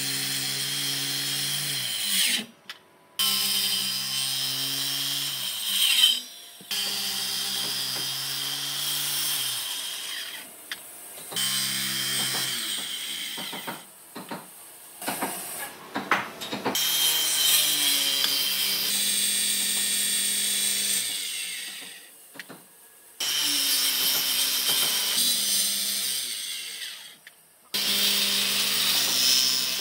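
Maktec handheld circular saw running and cutting a row of shallow kerfs across a thick wooden block. The sound comes in several stretches of a few seconds each, each breaking off suddenly before the next starts.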